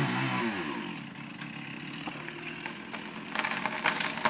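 Chainsaw throttled back from high revs to a steady idle about half a second in. From about three seconds in, sharp cracks come faster and faster as the hinge wood of a fir splits and the tree starts to fall.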